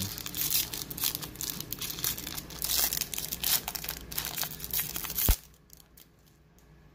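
Foil wrapper of a 2021 Bowman Baseball hobby pack crinkling and tearing as gloved hands open it, with a single sharp click about five seconds in.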